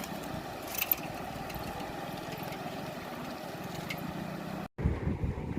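Floodwater rushing across a road, a steady wash of noise with a steady low hum beneath it and a sharp click about a second in. Near the end the sound drops out for a moment and comes back with wind buffeting the microphone.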